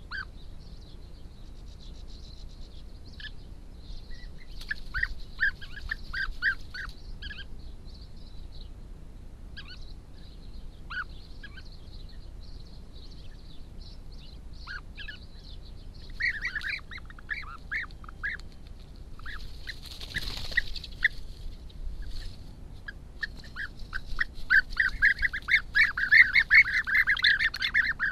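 European bee-eaters calling: clusters of short, rolling calls come and go, then grow dense and louder in the last few seconds. A faint steady high hiss runs under them.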